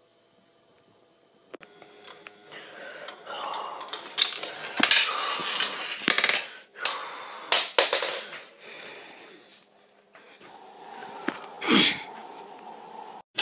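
A marble rolling and clattering over hard surfaces, with a few sharp clicks and knocks as it strikes things, quieter in the last few seconds.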